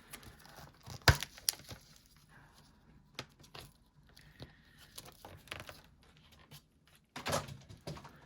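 Small phone parts and tools being handled on a workbench while a replacement iPhone screen is picked up: scattered light clicks and taps, a sharp click about a second in, and a short rustling scrape, like plastic film or packaging, about seven seconds in.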